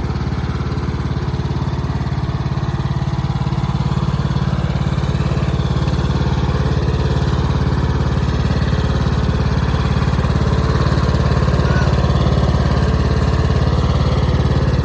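Riding lawnmower engine running steadily as the mower is driven, getting a little louder about halfway through.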